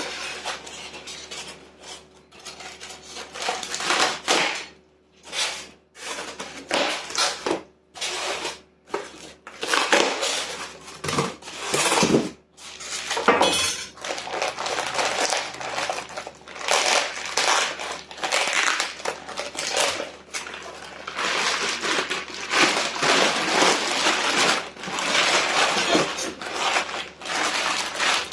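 Engine rebuild kit parts and their packaging being handled: irregular clinks, knocks and rustling of small metal pieces, one after another.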